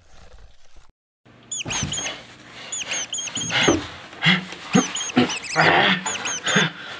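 Rapid high-pitched squeaking, like a small animal's, in quick runs of short chirps, starting about a second in and mixed with a few short low sounds.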